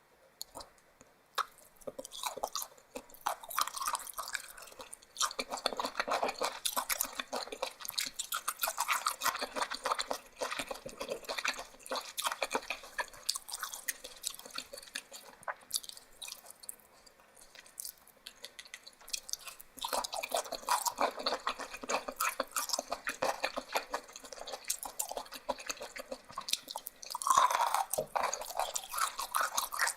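Close-miked chewing of large mouthfuls: wet smacking and crunching mouth sounds, easing off for a few seconds mid-way, then resuming with a loud bite near the end.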